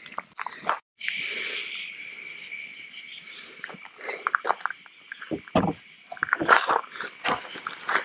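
A steady chorus of night insects, crickets, chirring at two high pitches, starting about a second in. Over it, from about halfway, come scattered clicks, knocks and rustles of food, plates and plastic bags being handled on a wooden picnic table.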